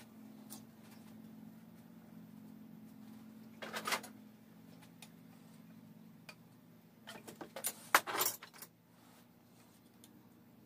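Metal hand tool clinking and scraping against a bare engine block: a short burst about four seconds in, then a longer run of clinks and scrapes from about seven to eight and a half seconds. A steady low hum sits underneath.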